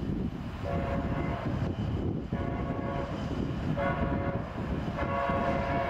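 Locomotive horn sounding four blasts, long, long, short and a final long one that keeps going, the standard grade-crossing signal, over a steady low rumble.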